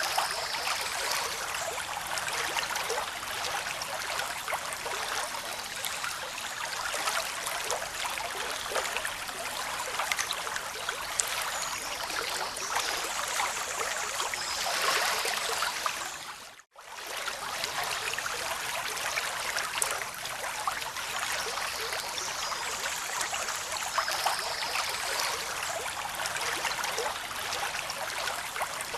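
Flowing water with a steady rush and many small splashes and trickles. It briefly fades out and back in about 17 seconds in, as the recording loops.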